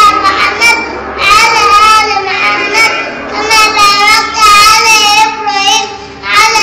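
A young boy chanting an Islamic prayer recitation aloud in a high, melodic sing-song voice, in phrases of a second or two with short pauses between them.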